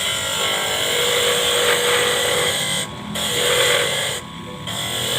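Lathe cutting tool biting into spinning stock to slice it thin: three cutting passes with brief breaks between, over the steady hum of the running lathe.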